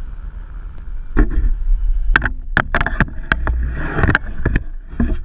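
About a dozen sharp knocks and clicks, irregularly spaced and starting about a second in, over a steady low rumble on a boat.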